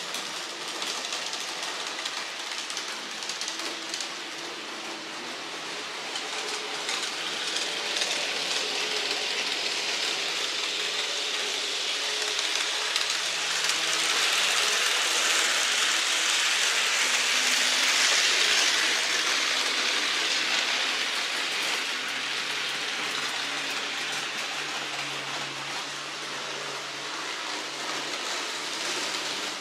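N-scale model train running on the layout's track: a steady rushing hiss with a faint wavering motor hum beneath. It grows louder toward the middle as the train passes close, then eases off.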